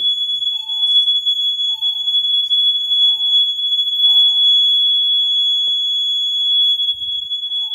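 Fire alarm system sounding in alarm during a test: a loud, steady, high-pitched electronic tone that does not break, with a fainter lower tone pulsing about once a second beneath it.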